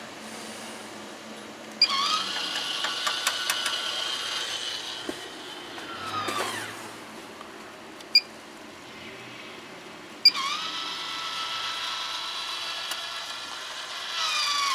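Maxxair roof vent fan's electric motor: a short chirp from its control, then a whine rising to speed and running steadily, winding down about six seconds in. Another short chirp comes near the middle, then a chirp and the whine spins up again, holds, and starts to wind down near the end.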